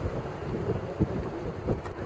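Wind buffeting the microphone: a rough, uneven low rumble with irregular gusty bumps.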